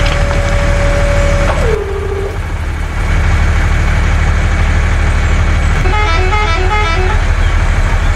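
A truck engine runs with a steady low rumble. A held horn toot ends with a drop in pitch about a second and a half in, and a brief run of quick melodic beeps sounds around six seconds in.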